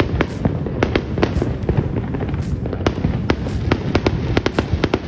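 Fireworks going off: a rapid, irregular string of sharp cracks, several a second, over a steady low rumble.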